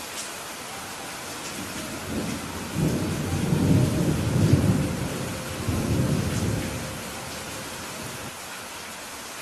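Steady rainfall with a roll of thunder rumbling in about two seconds in. The thunder swells twice and dies away a couple of seconds before the end, leaving the rain alone.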